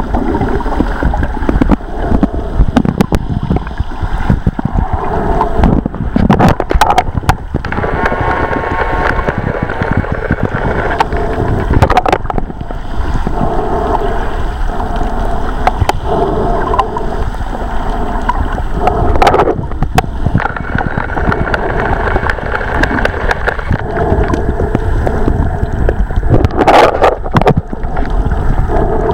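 Water sloshing and gurgling around a snorkeler's camera, a continuous noise with scattered sharp clicks and knocks.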